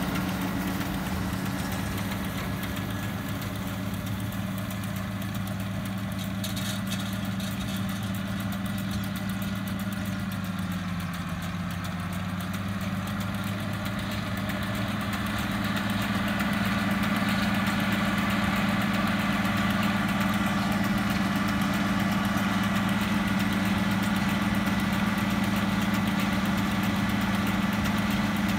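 International Harvester tractor's diesel engine running steadily under load while pulling a Vermeer 504N round baler through windrowed hay. It gets louder a little past the halfway point.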